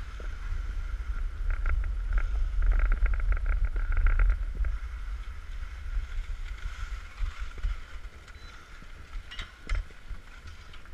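Wind rumbling on an action camera's microphone while skiing over packed snow, with skis scraping and a rapid run of clicks about two to four seconds in. It eases as the skier slows to a shuffle, with a few sharp clicks near the end.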